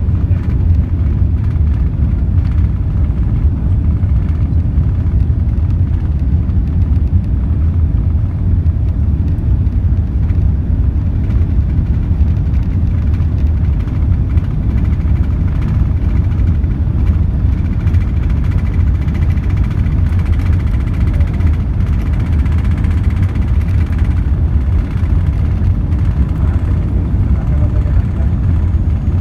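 Cabin noise inside an Airbus A380-861 during takeoff: its Engine Alliance GP7200 turbofans and the airflow make a loud, steady low rumble, with a faint high whine in the middle stretch.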